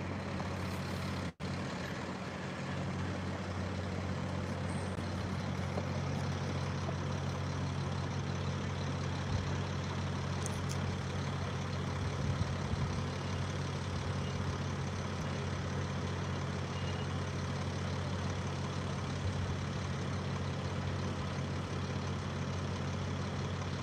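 Heavy vehicle engine idling, a steady low hum over street background noise. The sound cuts out for a moment about a second and a half in.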